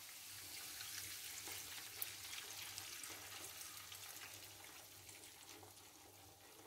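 Blonde beer poured from a measuring jug over browned chicken pieces in a hot pot, the liquid hitting the hot fat and sizzling faintly; the sizzle fades away toward the end.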